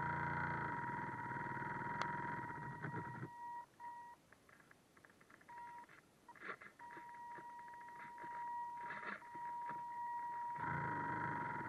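RC boat's electric drive heard through its onboard camera: a steady high whine with a second, higher tone above it. A louder rush of motor and water noise covers the first three seconds or so and comes back near the end, with quieter broken stretches between.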